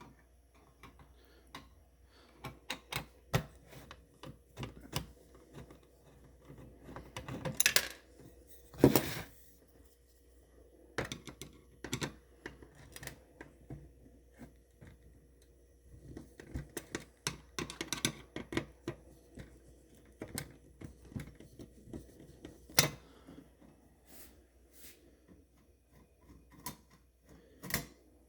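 Irregular clicks, taps and metallic clinks of a screwdriver working on stubborn screws and of the machine's metal and plastic panel parts being handled. Two louder clatters come about eight and nine seconds in, and another a little before the end.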